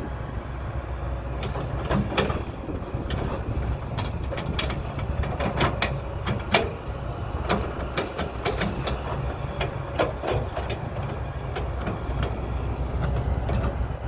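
Kobelco SK200 hydraulic excavator's diesel engine running steadily under digging load. Over it come scattered knocks and scrapes as the bucket digs into and scoops the dirt, most of them in the middle of the stretch.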